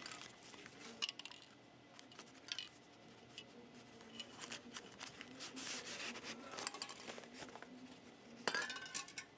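Newspaper rustling and crinkling as it is pressed and folded around a metal spray can, with a few light clicks and clinks. A louder rustle comes near the end as the paper tube is slid off the can.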